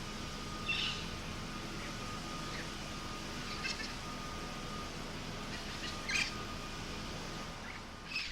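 Birds calling in short, high chirps, one every two or three seconds, over a steady low background hum.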